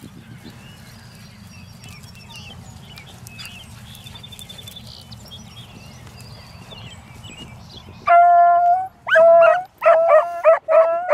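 Beagle baying: one long drawn-out note about eight seconds in, then short bays about three a second. This is a hound giving tongue on a rabbit's scent. Before the baying there is only a low, faint steady rumble.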